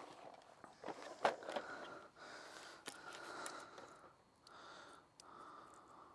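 Faint handling sounds from an angler working a fishing pole and tackle on his seat box: a few light knocks and clicks, the loudest about a second in, over soft rustling.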